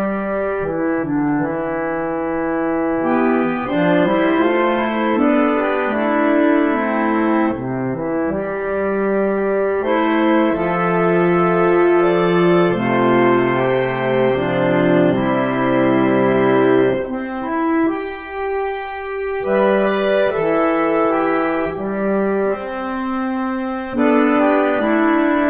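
Freshly restored Estey Style O reed organ being played: sustained chords that change every second or two, with a brief lull about two-thirds of the way through.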